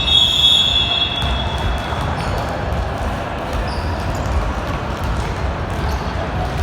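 A referee's whistle blows one long blast of about two seconds. Then come basketball bounces and sneaker noise on the court.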